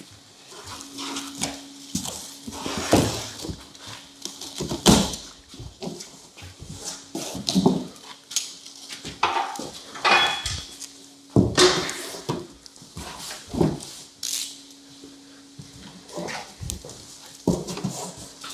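Large cardboard shipping box being opened and handled: flaps and packing scraping, rubbing and knocking in irregular bursts. A steady low hum runs underneath.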